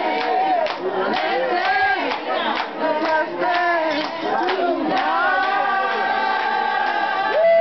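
Party crowd singing along loudly over dance music, many voices together, with a steady beat for the first five seconds or so; after that the voices hold one long note.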